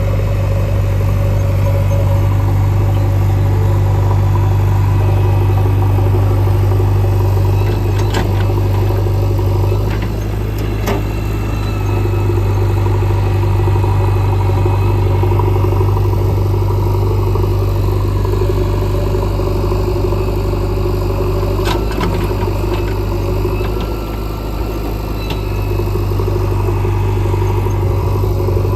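Diesel engine of a JCB 3DX backhoe loader running steadily, with a few short sharp knocks scattered through.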